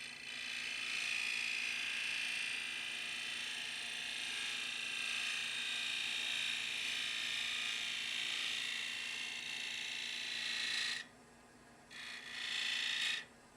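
Freshly sharpened woodturning gouge cutting into a wooden bowl spinning on a lathe: a steady shearing hiss for about eleven seconds that stops suddenly, then a second, shorter cut near the end.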